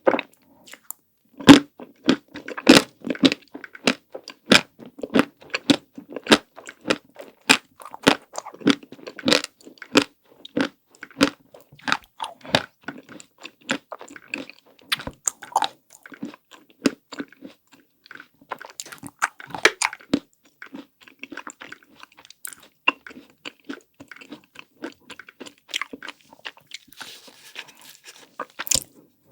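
Close-miked eating of chocolate desserts: crunching bites and wet chewing, a quick run of sharp mouth clicks that thins out in the second half.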